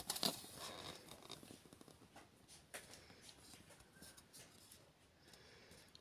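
Faint scratchy rustling and small clicks, loudest in the first second and then dying down to low room hiss.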